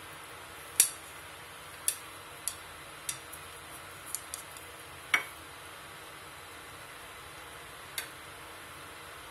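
A utensil clinking and tapping against a stainless steel soup pot, about eight irregular light knocks. The loudest comes about five seconds in and rings briefly. A steady faint hiss runs underneath.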